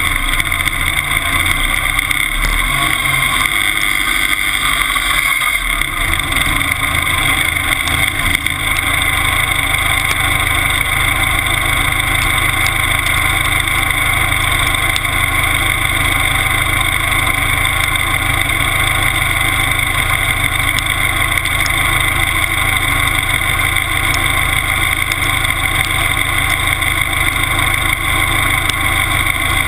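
Timberjack skidder engine running loudly and steadily, heard close to the upright exhaust stack. Its low note fills out about six seconds in, then holds steady.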